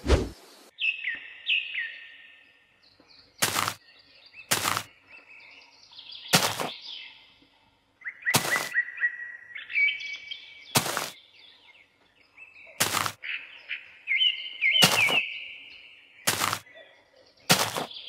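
Small birds chirping in runs of short falling chirps, with nine sharp taps or knocks spaced a second or two apart.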